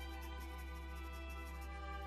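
Soft background music with slow held notes, string-like, over a steady low hum.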